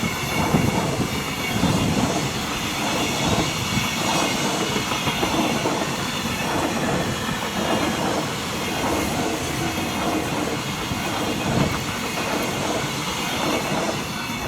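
Freight train of mostly empty container flatcars passing close by, its wheels clattering over rail joints in a steady repeating rhythm, with a high squeal from the wheels.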